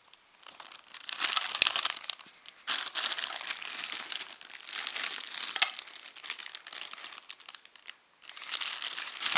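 Thin clear plastic bag crinkling and crumpling as a toddler handles it, in irregular bursts with a short pause shortly before the end.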